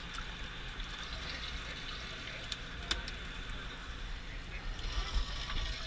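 Steady rush of water with a low rumble underneath, and two sharp clicks about two and a half and three seconds in.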